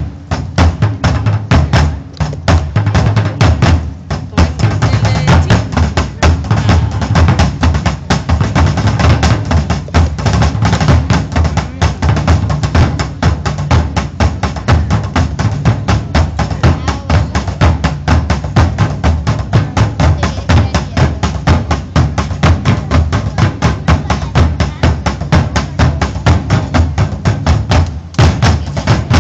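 An ensemble of three Japanese taiko drums, two upright barrel drums and a large barrel drum on a slanted stand, played together in a fast, dense, driving rhythm. The playing stops at the very end.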